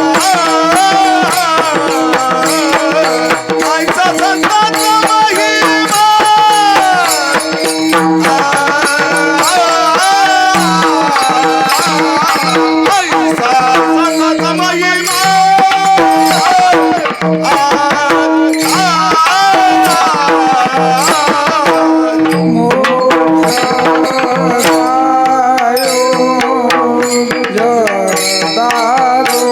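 Devotional abhang music: a voice sings a long, sliding melody without clear words over a steady drone, with tabla strokes.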